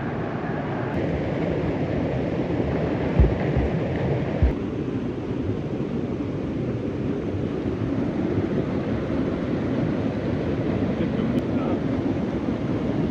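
Steady rushing of a waterfall, with two dull low thumps about three and four and a half seconds in.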